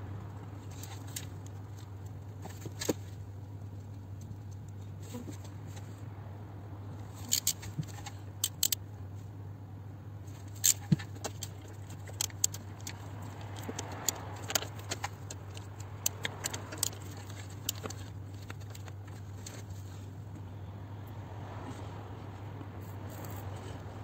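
Irregular metallic clicks and clinks of a ratchet and fittings as the oil feed line's bolt is fitted and tightened on a turbocharger, over a steady low hum. The clicks come in short clusters through the middle of the stretch.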